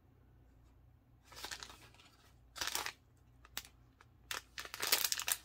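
Clear plastic packaging crinkling in the hands, in several short rustles after a quiet start, becoming more continuous near the end.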